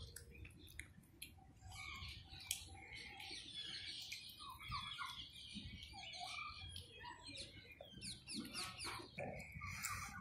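Birds chirping repeatedly, short quick calls, with scattered small clicks.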